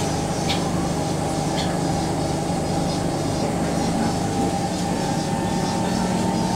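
Steady running noise inside an SMRT C151 electric train carriage: a low rumble under a steady hum, with a couple of light clicks about half a second and a second and a half in.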